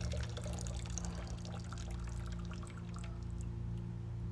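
A pouring-water sound: a quiet, steady trickle full of small gurgling clicks, over a low steady hum.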